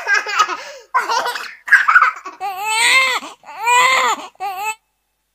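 Casio CT-X series keyboard playing its sampled laughter sound-effect tones: a string of short human and baby-like laughs, one after another, stopping near the end.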